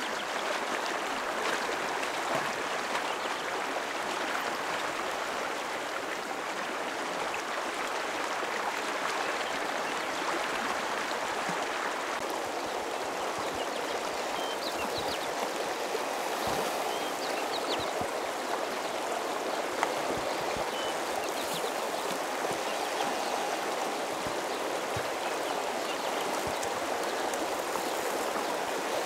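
Shallow stream running fast over a stony bed: a steady, even rush of water.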